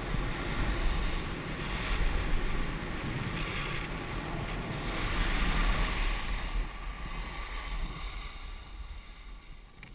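Wind buffeting the camera microphone during a fast ski run, with the hiss of ski edges carving over packed snow swelling through each turn. The noise quietens over the last few seconds.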